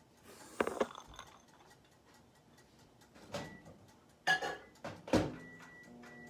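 Kitchen handling sounds: several sharp knocks of dishes or containers being set down, and a few short high beeps. Near the end a microwave oven starts up and hums steadily. A faint regular ticking sounds underneath.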